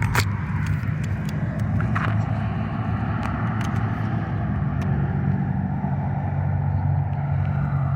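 A car running, with a steady low engine and road hum.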